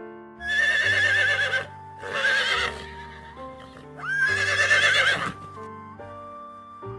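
A horse whinnying three times, each a high, quavering call, over background music.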